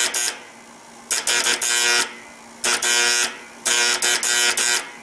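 HVAC condenser contactor on a Trane XL1200 being energized from a control transformer, its coil and armature buzzing loudly in four bursts of about a second each, with rapid clicks within each burst. The 240 V supply is off, so this is the contactor pulling in alone as its action is tested.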